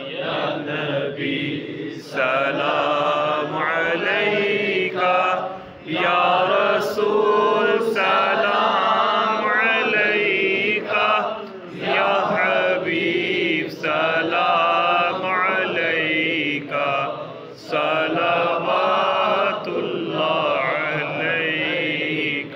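A man chanting an Islamic devotional recitation into a microphone, in long melodic phrases with brief pauses for breath between them.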